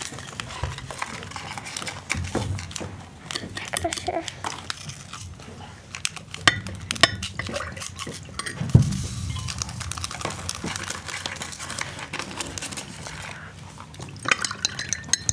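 Kitchen utensils clinking and knocking: dishes, pots and cutlery being handled, with irregular clicks and a few louder knocks around the middle.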